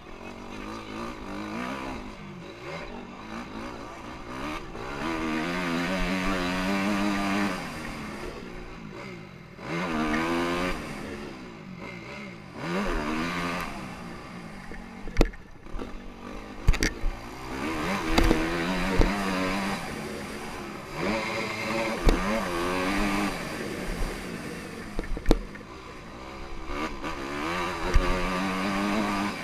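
Honda CRF250R's single-cylinder four-stroke engine revving up and dropping back again and again as the bike is ridden hard around a motocross track, with a few sharp knocks along the way.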